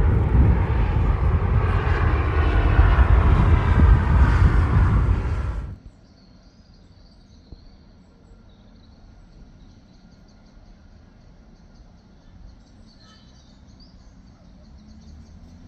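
Loud jet engine noise from an Airbus A330neo's Rolls-Royce Trent 7000 engines at take-off power, with a faint wavering whine in it. It cuts off suddenly about six seconds in, leaving only a faint background hiss.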